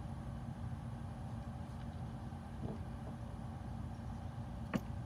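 Steady low hum of workshop background noise, with a faint tick a little over halfway through and a single sharp click near the end as small parts and tools are handled on the bench.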